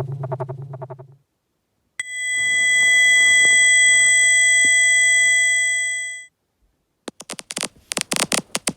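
Synthetic tinnitus-simulation sounds played in sequence. A rapidly pulsing low buzz ends about a second in. After a short pause comes a steady high-pitched ringing of several tones together for about four seconds. Near the end a fast, irregular clicking starts.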